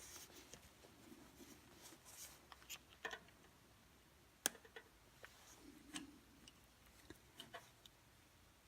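Near silence with a few faint, scattered clicks and light handling sounds, the sharpest about four and a half seconds in.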